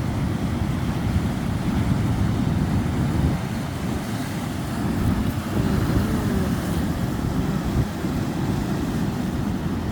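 Steady wind rumble on the microphone, with the wash of surf on the beach beneath it.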